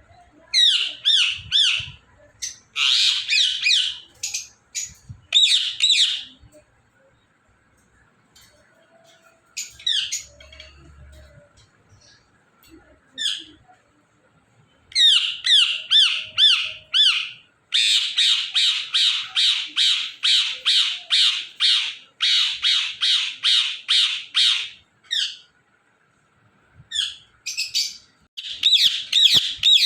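Indian ringneck parrot squawking: repeated high-pitched calls in runs of two to three a second, broken by short pauses. The longest unbroken run comes in the second half and lasts about seven seconds.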